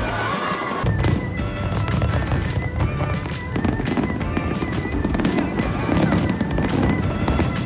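Fireworks display: aerial shells bursting in quick succession, a couple of sharp bangs a second over a continuous low rumble that grows heavier about a second in. Background music plays along.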